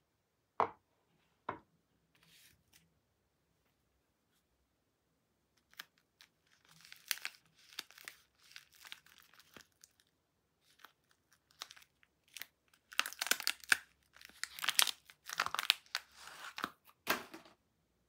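The wrapper of a bar of Vesna soap being torn and crinkled open by hand, in bursts of crackling that are loudest and densest in the last few seconds. Two sharp knocks sound near the start.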